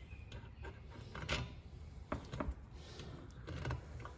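Hand-handling noises of a replacement carburetor being fitted onto a Ryobi HT26 hedge trimmer engine: a few light clicks and knocks of plastic and metal parts, with some rubbing, the loudest knock about a second in.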